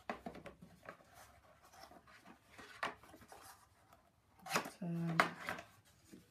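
A small cardboard box being handled on a desk and its lid lifted open: soft rubs, scrapes and light taps of cardboard. About five seconds in there is a brief pitched vocal sound, the loudest moment.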